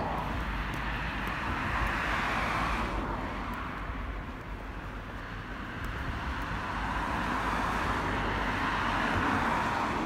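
Road traffic: cars passing one after another, their tyre and engine noise swelling and fading, over a steady low rumble.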